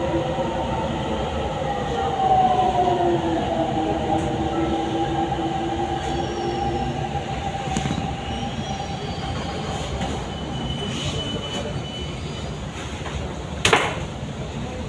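Delhi Metro train running out of sight, a rumble with a whine of several steady tones that dips slightly in pitch and fades away over the first nine seconds or so. A single sharp click comes near the end.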